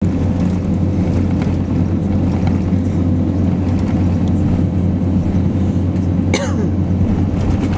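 Steady cabin rumble inside an Airbus A350-900 as it taxis, from its Rolls-Royce Trent XWB engines at taxi power and the air conditioning, with a faint steady whine. About six seconds in there is a brief sound that falls in pitch.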